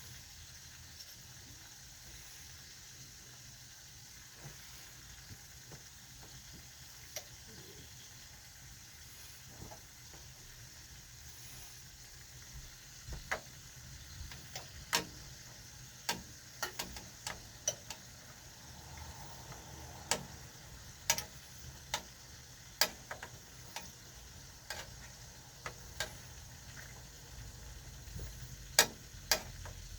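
Food sizzling in a frying pan, a steady quiet hiss. From about halfway on, irregular sharp clicks of a utensil knocking against the pan as the food is stirred or turned.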